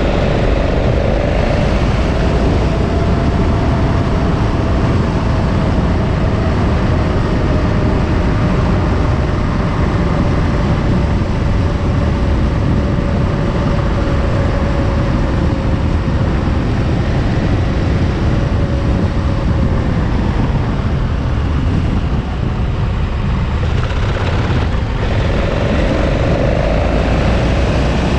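KTM 1290 Super Adventure's V-twin engine running at road speed, with heavy wind rumble on the microphone. The engine note sags slowly, drops away briefly about three-quarters of the way through, then climbs again near the end as the bike picks up speed.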